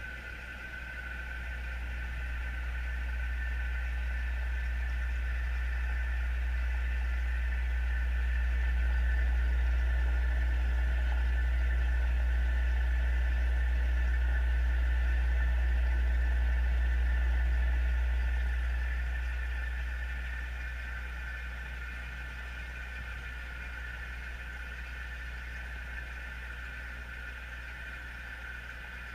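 Steady machine hum and low rumble of an aquarium tank's water circulation and aeration, heard through an underwater camera. The rumble swells over several seconds and eases off about two-thirds of the way through.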